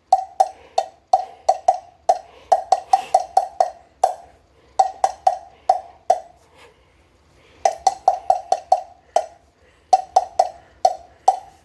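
A small handheld cowbell struck over and over in a quick repeating rhythm, several strikes a second, each a bright clank with a short ring. The playing pauses briefly about six seconds in and again near nine seconds.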